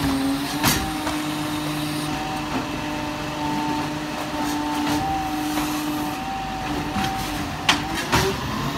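Side-loading garbage truck's automated hydraulic arm lifting a wheelie bin, tipping it into the hopper and setting it back down. A steady hydraulic whine holds over the running truck engine, with a sharp knock about a second in and two more near the end.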